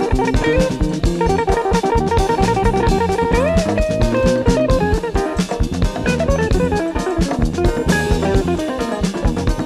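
Early-1970s jazz-funk instrumental track playing, with guitar, bass and drum kit keeping a steady groove under a melody line; about a third of the way in one melody note slides upward.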